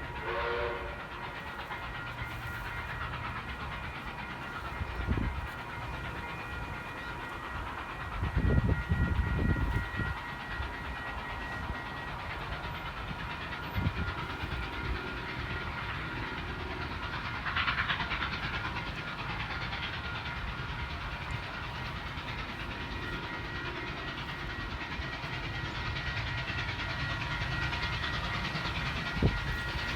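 A train running on the line: steady rail noise with a few thin, steady high tones, and a louder low rumble about eight to ten seconds in.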